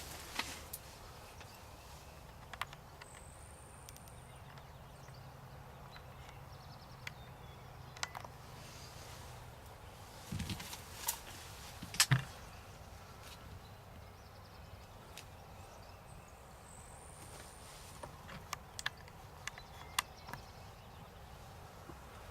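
Quiet outdoor background with scattered small clicks and rustles. A brief cluster of sounds comes about ten seconds in and a sharp double knock shortly after.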